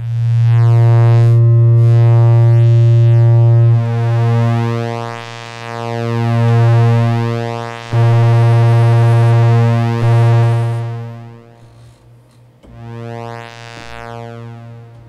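Kurzweil PC3 synthesizer playing a low, sustained pulse-wave pad note, held and re-struck several times. Its tone sweeps as an LFO modulates the pulse width. The level swells and dips, and late on it sinks almost away, which fits the player's remark that the LFO takes the pulse width too far so the sound completely disappears.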